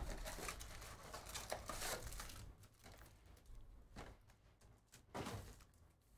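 Plastic wrapping crinkling as a cardboard trading-card box is opened, then the stack of card packs slides out onto the table, with short rustles about four and five seconds in.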